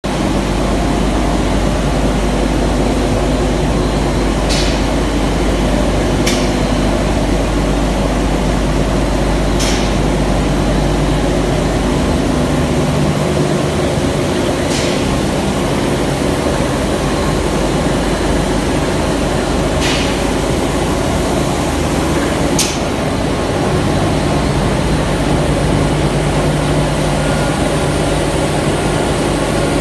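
Calcium carbonate ball mill plant with its AMS6303 classifiers running: a loud, steady industrial hum of electric motors, belt drives and milling machinery, with a few sharp ticks at irregular intervals of a few seconds.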